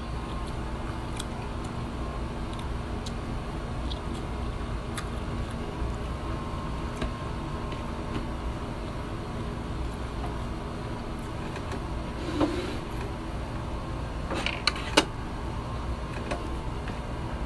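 Steady low background rumble, with faint scattered clicks and taps from eating off a plate by hand. There is a short louder sound about three-quarters of the way through and a couple of sharper clicks shortly after.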